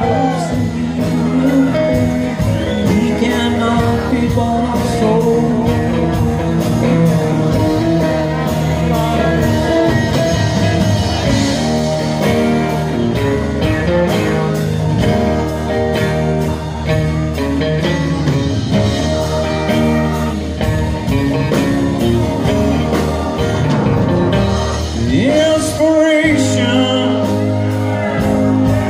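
Live band music: acoustic and electric guitars over drums with a steady beat.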